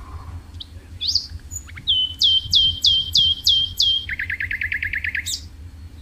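A songbird singing one phrase: a rising note about a second in, then about six whistles that each sweep down onto the same steady pitch, then a fast lower trill that ends on a sharp high note.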